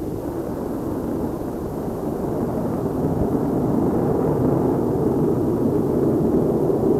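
Steady jet-aircraft engine noise in flight: a broad, rushing drone that swells over the first few seconds and then holds.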